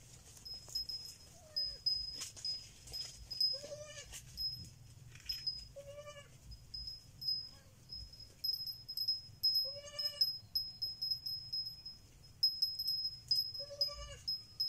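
A baby goat bleating in short, high-pitched calls: four clear bleats a few seconds apart, with a fainter one before them. A quick, high chirping repeats throughout behind them.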